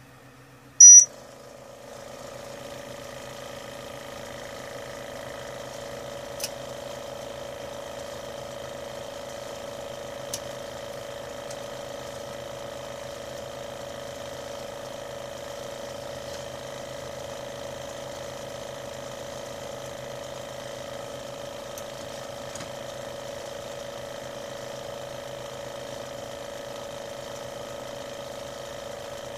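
Homemade BGA rework station: one short, loud, high beep from its controller about a second in, as the heating profile reaches its 200 °C stage. A steady motor hum starts just after it and keeps running.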